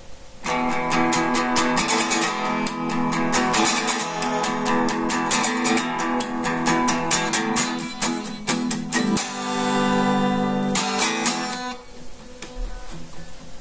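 A guitar strummed in quick, driving chord strokes. About two-thirds of the way through, one chord is left ringing for a second or so before the strumming resumes, and the playing turns quieter near the end.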